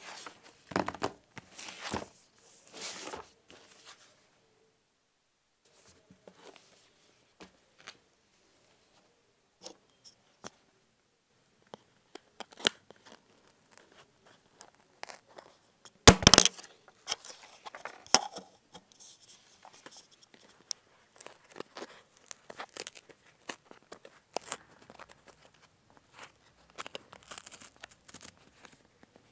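Cardboard and plastic packaging being opened and handled by hand: intermittent short rustles, scrapes and clicks, with one loud sharp crack about halfway through.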